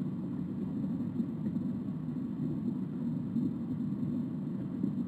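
Steady low rushing rumble of simulated water flowing into the tank in the Factory I/O process simulator, with the tank's fill valve partly open.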